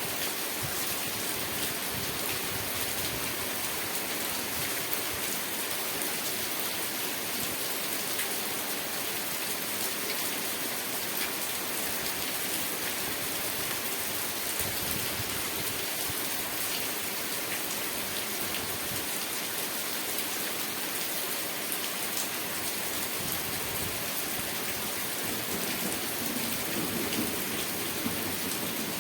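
Steady rain with individual drops ticking on a surface. A low rumble of thunder builds near the end.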